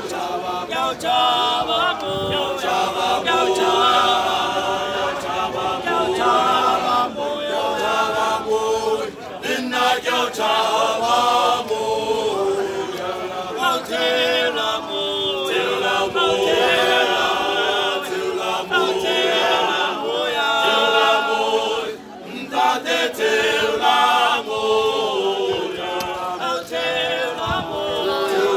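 Male choir singing unaccompanied, several men's voices together, with a short break between phrases about three-quarters of the way through.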